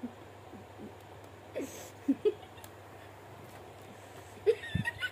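Soft, stifled vocal sounds: a few brief giggles and whimper-like squeaks, the loudest about two seconds in and again near the end, over a faint steady hum.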